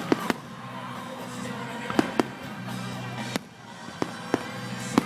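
Firecrackers going off: several sharp bangs at irregular intervals, some in quick pairs, over background music.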